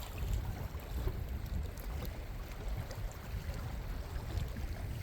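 Uneven low rumble of wind and water noise on a fishing boat, with no clear engine note.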